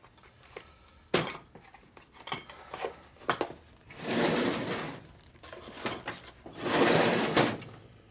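Small parts being handled at a workbench: a sharp click about a second in, a few light knocks, then two rattling, rustling bursts of about a second each, like parts being shaken or rummaged in a cardboard box.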